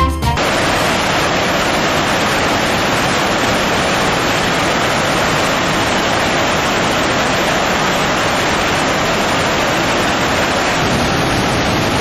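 Victoria Falls rushing steadily: an even, unbroken hiss of a great mass of falling water. Background music cuts off just after the start.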